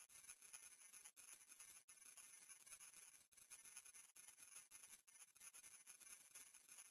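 Very faint high-pitched hiss of a silent subliminal track: text-to-speech affirmations shifted up in pitch to the edge of hearing, broken by brief gaps every second or so.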